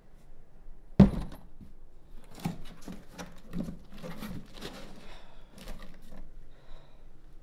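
A heavy cardboard box set down hard on a coffee table with one loud thud, followed by a series of lighter knocks and cardboard rustling as it is shifted and handled.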